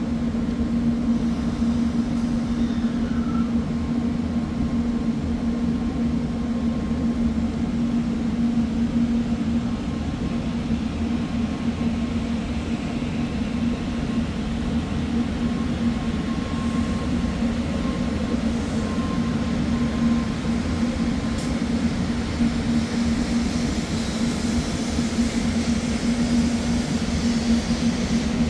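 Shinkansen train with a steady low hum over an even rushing noise, its pitch holding constant throughout.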